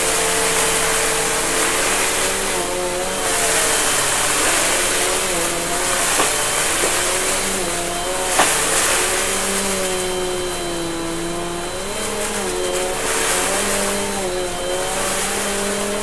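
Upright vacuum cleaner running on carpet as it is pushed back and forth through loose debris. The motor hum wavers in pitch and the rush of suction swells and falls with each stroke, with a couple of sharp clicks about halfway through.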